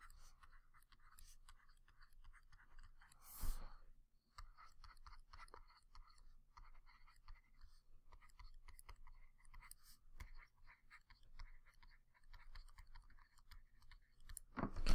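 Stylus writing on a tablet screen: faint, irregular tapping and scratching as handwriting is inked. A brief louder noise comes about three and a half seconds in.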